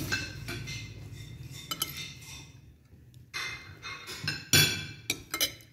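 Spoons clinking and scraping against china plates during a meal: a handful of separate sharp clinks, a few ringing briefly.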